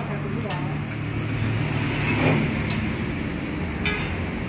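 Steady low rumble of road traffic, with a few short light clicks.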